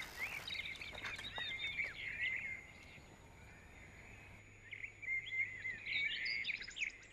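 Small songbirds chirping and singing in quick, overlapping calls, in two spells with a quieter gap in the middle, over a faint steady outdoor background.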